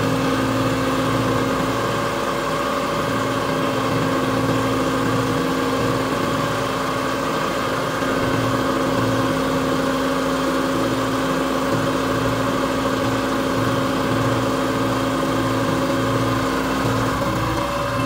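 Kia Bongo 3 truck's diesel engine idling steadily.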